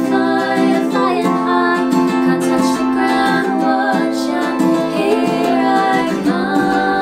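Ukulele and acoustic guitar playing together, with female voices singing over them.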